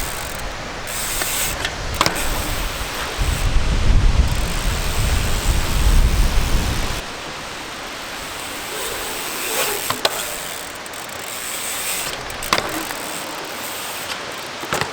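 Wind buffeting the microphone, loudest as a deep rumble from about three to seven seconds in, over the noise of a mountain bike being ridden on ramps, with a few sharp knocks.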